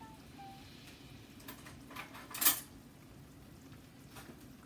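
A few light clicks and clinks of kitchen tongs and a pan lid against a skillet, with one louder clank about two and a half seconds in.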